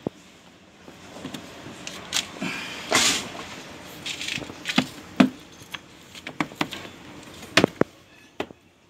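Hands pressing and patting a freshly glued rubber floor mat onto a scooter's plastic floorboard: scattered taps and knocks with short rubbing sounds, the loudest scuff about three seconds in.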